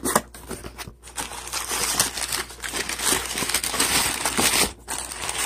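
Crumpled packing paper crinkling and rustling as it is pulled out of a cardboard shipping box by hand, nearly continuous, with a short pause near the end.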